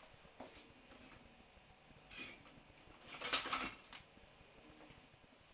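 Crockery and cutlery clinking: a few light knocks, then a short run of louder clinks about three and a half seconds in.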